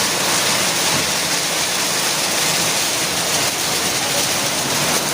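Heavy rain mixed with hail pouring down steadily.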